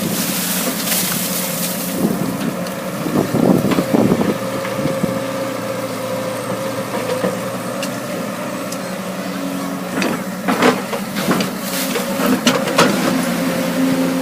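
Caterpillar excavator running steadily at a constant engine note, with clusters of knocks and scrapes from the digging a few seconds in and again from about ten seconds in.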